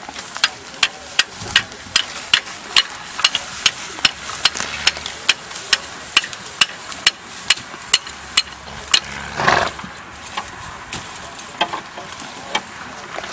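Even, rhythmic metallic clicking from a horse-drawn reaper-mower's mechanism, about three clicks a second, fading after about ten seconds. A short rasping noise cuts across it about nine and a half seconds in.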